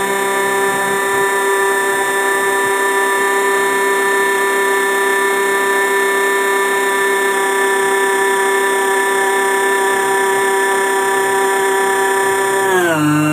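RC model fishing boat's motor running with a steady high whine, its pitch dropping in two steps near the end as it slows.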